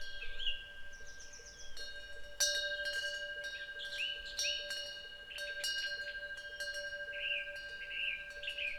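Temple wind bells (pungyeong) struck over and over by their swinging clappers, several steady ringing tones hanging on under the strikes, which come thickest from about two seconds in. Small birds chirp now and then.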